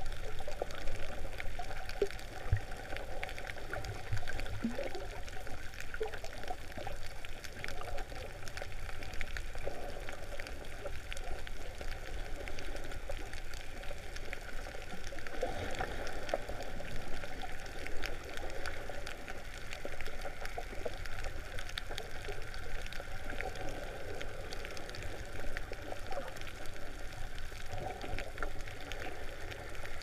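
Underwater ambience heard through a camera's waterproof housing: a steady, muffled watery rush with many faint scattered clicks.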